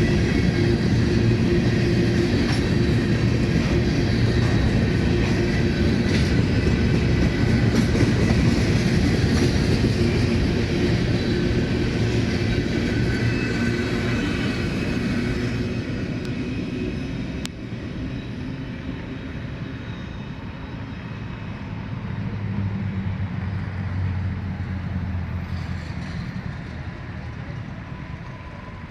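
Empty covered grain hopper cars of a freight train rolling past, their wheels rumbling and clacking on the rails. The noise holds steady for about fifteen seconds, then drops away as the train recedes, with a low hum rising and falling briefly near the end.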